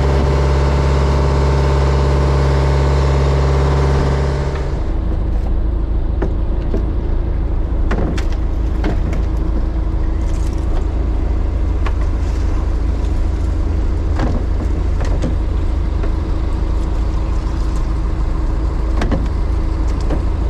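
A small fishing boat's engine running steadily under way. About four and a half seconds in this gives way to a lower steady engine hum with scattered knocks and clatter as fish are handled and sorted into plastic crates.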